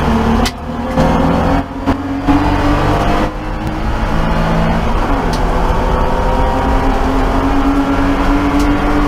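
BMW E30 race car's straight-six engine at full throttle, heard from inside the stripped cabin. The engine note dips briefly three times in the first few seconds as the driver shifts gears, then pulls steadily with slowly rising pitch as the car gains speed.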